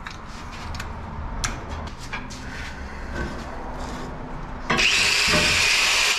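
Small clicks and rubbing of a pencil and hands handling a metal plate on a workbench, then a corded angle grinder cuts in suddenly about three-quarters of the way through, running loud and steady as it cuts the plate.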